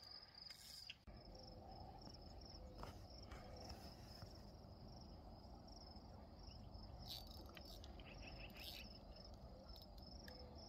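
Faint, steady high-pitched trill of crickets chirping, with a few soft clicks about seven to nine seconds in.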